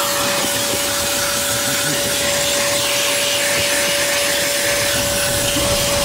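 Vacuum of a 4-in-1 car-wash machine running steadily, its hose and curved wand sucking dirt off a car's floor carpet: an even rush of air with a constant whine.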